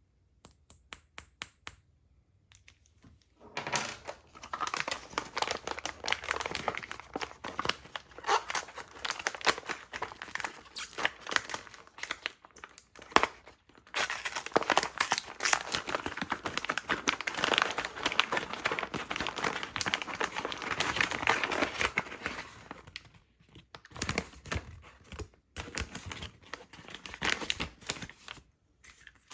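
Toy packaging being handled and opened: a few sharp clicks, then long stretches of crinkling and tearing with short pauses.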